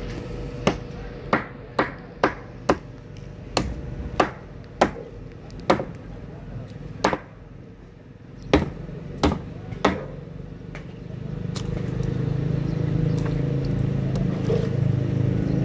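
A large knife chops through a yellowfin tuna's bony frame on a wooden table: about a dozen sharp chops, half a second to a second and a half apart, stopping about ten seconds in. After that a low engine rumble rises and grows louder.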